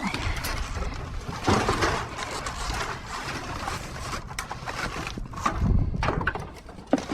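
Debris being shifted and handled in a dumpster: irregular scraping and knocking of wood and junk, with a sharp knock near the end.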